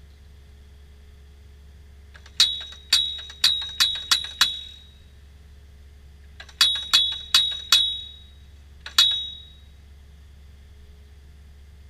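Excavator-mounted post driver hammering a steel fence post: sharp, ringing metal-on-metal blows about two a second. They come as a run of six, then four, then a single blow near the end, over a steady low hum.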